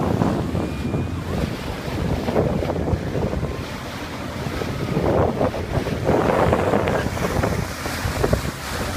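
Wind buffeting the microphone in uneven gusts over the wash of lake water and waves.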